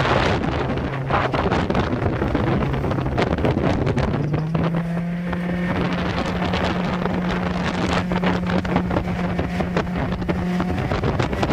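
Mercury 60/40 outboard jet motor running at speed on a jon boat, its pitch stepping up about four seconds in as the boat speeds up, with wind buffeting the microphone.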